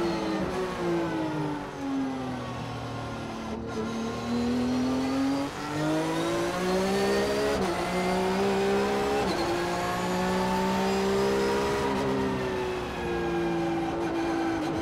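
Porsche Sprint Challenge race car's flat-six engine heard from inside the cockpit at speed: the revs fall for the first few seconds as it slows, then climb with two quick gear changes, ease off again near the end and pick back up.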